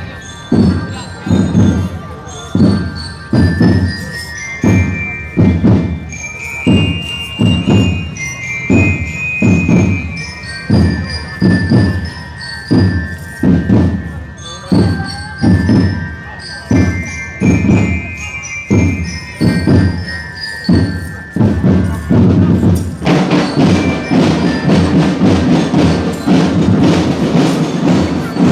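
Military marching drum band playing. Heavy bass drum beats keep a steady march pulse under a high, bell-like melody. About 23 seconds in, the band comes in fuller, with dense continuous drumming.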